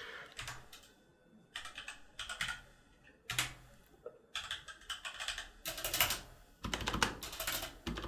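Keys typed in quick runs on an Endorfy GK650K Omnis mechanical keyboard with Kailh Red linear switches and pudding keycaps, in several bursts with short pauses and a few deeper thuds among the clicks. The keys sound slightly hollow, with a ping inside.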